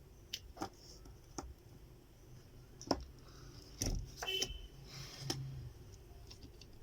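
Small clicks and taps of a laptop cooling fan being fitted onto the motherboard by hand, a handful of sharp separate clicks with the loudest about three seconds in and a quick cluster around four seconds.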